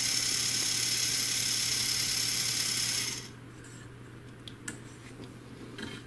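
Small brushed DC gear motor from a MAMIBOT robot vacuum running on 14 V from a bench power supply, a steady high-pitched whir with gear noise, with no commutator sparking seen. It cuts off suddenly about three seconds in, and a few light handling clicks follow.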